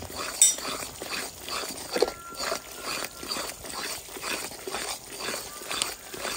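A steel spoon stirring thick, frothy adadiya batter in a large aluminium kadai, scraping and knocking against the pan about twice a second. A sharper clink comes about half a second in and again about two seconds in.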